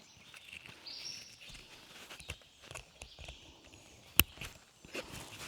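A hiker's footsteps on a trail, with light scuffs and rustles, and one sharp click about four seconds in.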